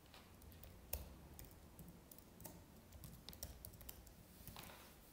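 Faint typing on a computer keyboard: irregular single keystrokes, one louder about a second in.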